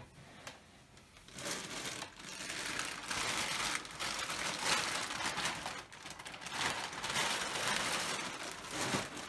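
Crinkling and rustling of packaging as someone rummages for small items. It starts about a second and a half in and goes on with short dips.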